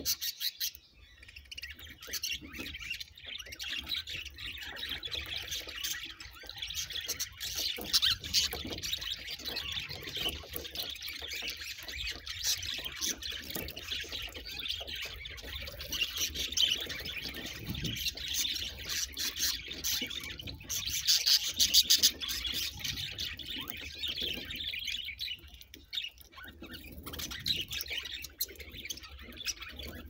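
A flock of budgerigars chattering continuously, a dense mix of quick warbling chirps and squawks, with scattered short clicks.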